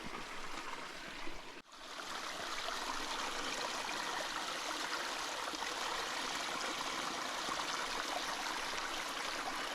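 Stream water running steadily. There is a brief drop-out about a second and a half in, and the sound fades back up.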